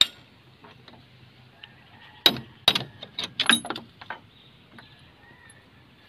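Short, sharp metallic clinks and knocks of steel parts as a pin is worked back into a Komatsu PC60 excavator's travel pedal linkage: one click at the start, then a quick run of about eight knocks between two and four seconds in.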